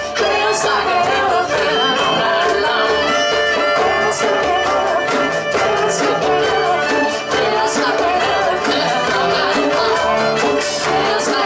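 Live folk band playing an up-tempo tune: a fiddle carries the melody over acoustic guitar strumming, djembe and drum kit keeping a steady beat, with a cello underneath.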